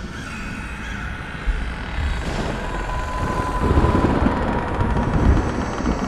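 Thunder rumbling: a low, rolling rumble that swells about two seconds in and stays heavy, with crackling peaks.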